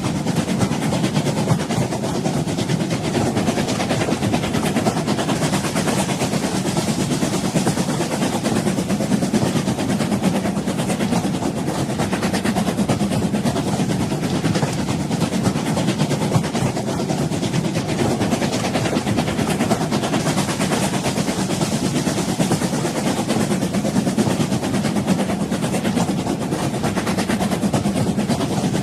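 A moving train on the rails: a steady rumble with constant rattling.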